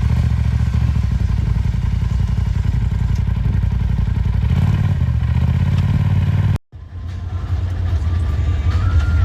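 Off-road vehicle engine running under load with some clatter, its pitch stepping up about halfway through as it speeds up. The sound cuts out completely for a split second about two-thirds of the way in, then the engine comes back.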